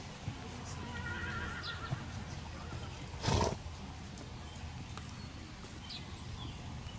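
A horse whinnying briefly, a short high call about a second in, with a short loud burst of noise about three seconds in, over steady outdoor background noise.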